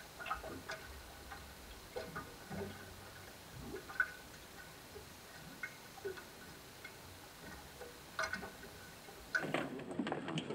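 Faint, irregular small clicks and plops of lake water lapping against the side of a boat, a little louder near the end.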